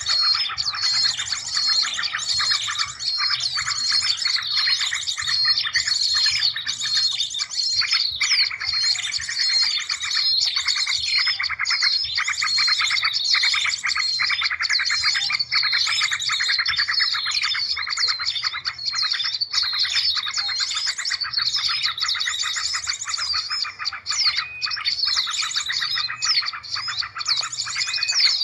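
Dense, continuous chatter of many small birds, rapid chirps and trills overlapping without a break: a bird-lure (pikat) call recording made to draw small birds in.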